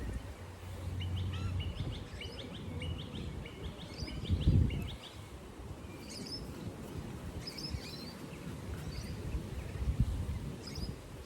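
Small birds chirping: a quick run of short repeated chirps in the first half, then scattered single higher chirps. Low rumbling noise runs underneath, with a couple of dull low thumps, the louder one a little before halfway.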